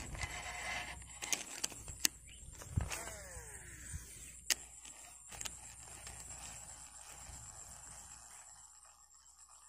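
Daiwa baitcasting reel during a cast: a few light clicks, then the spool's whine falling in pitch for about a second as the line pays out, and a sharp click about half a second later.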